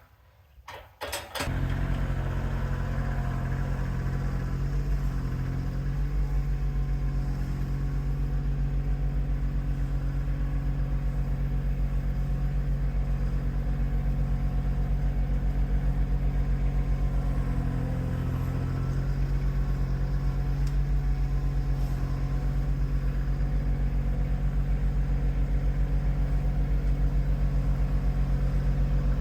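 An engine starts about a second in, catching after a few clicks, and then runs at a steady idle with an even low pulse.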